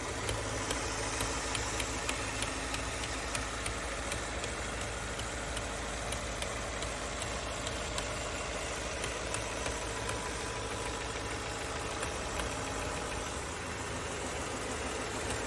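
2016 Ford F-150 engine running steadily with a weird, intermittent knock, light irregular knocks sounding through the engine noise; its cause is unknown.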